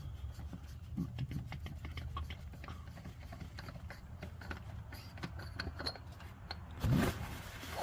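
Light, scattered clicks and taps of hands working the hoses and fittings of an oil catch can in a car's engine bay, over a steady low rumble, with one louder knock about seven seconds in.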